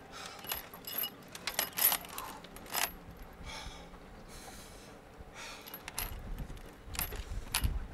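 Metal chains and padlocks clinking and jangling in short, sharp bursts, with a couple of breaths in the middle and a low rumble near the end.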